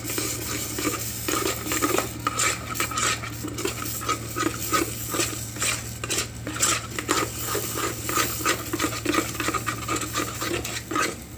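Wooden spoon scraping and clicking against the inside of a small electric nonstick pot, stirring sardines and egg as the broth cooks down, with a light sizzle. A steady low hum runs underneath.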